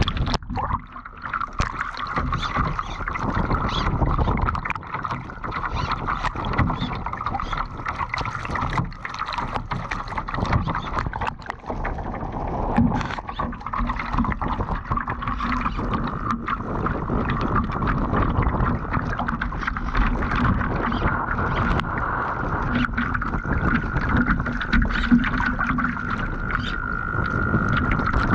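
Water rushing and splashing along the hull and over the deck of a radio-controlled Laser model yacht heeled hard in strong wind and chop, with wind buffeting the onboard microphone. A steady high whine runs underneath.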